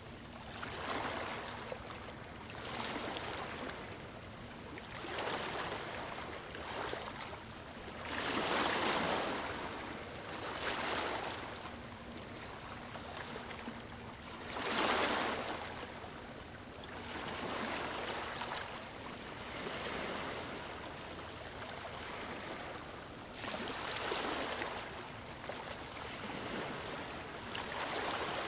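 Water washing and rushing, swelling and fading about every two to three seconds.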